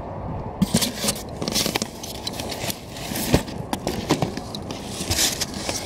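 Cardboard product boxes and packing paper rustling and scraping as boxed figures are handled and pulled out of a large cardboard shipping carton, with several sharp knocks.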